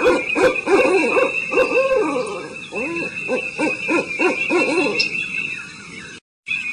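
Several birds giving short, low hooting calls in quick, overlapping succession, over a steady high-pitched hum; the sound cuts out completely for a moment near the end.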